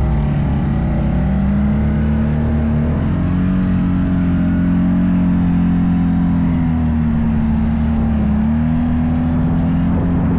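Off-road vehicle engine running continuously under throttle, its pitch dipping and climbing again a few times as the rider eases off and gets back on the gas.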